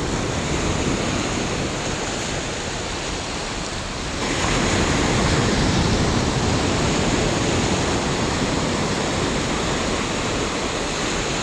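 Ocean surf breaking and washing up over the sand at the shoreline: a steady rushing noise that grows louder about four seconds in.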